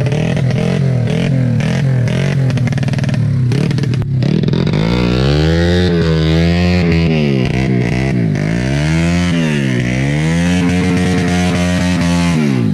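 Kawasaki KX250 dirt bike engine running loudly and steadily at first, then revving, its pitch rising and falling several times from about four seconds in and dropping off near the end.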